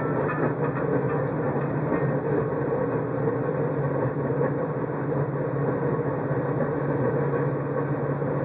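Lowered 1994 Buick Roadmaster wagon's undercarriage dragging on the pavement while driving: a steady metal-on-asphalt scraping grind over the car's road noise.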